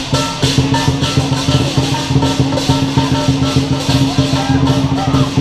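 Chinese lion dance percussion: a large drum beaten with a fast, steady beat under clashing cymbals and a ringing gong.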